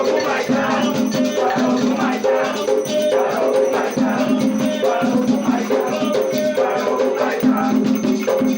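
Batuque ritual music: voices singing a chant in held notes over a steady beat of a rattling shaker, the agê beaded gourd, with drums.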